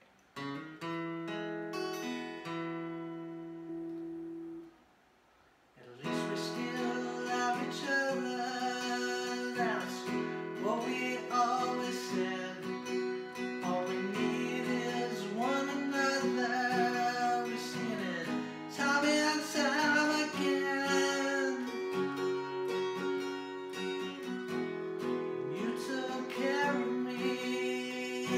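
Acoustic guitar strummed in a short opening phrase, a second's pause, then strummed on steadily, soon joined by a man singing.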